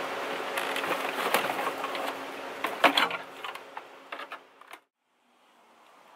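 Plastic dashboard of a 1989 Honda Civic hatchback being pulled out of the car: irregular plastic knocks, clacks and scraping as the dash panel comes loose, with the sharpest knocks about three seconds in. The sound thins out and cuts off suddenly near the end.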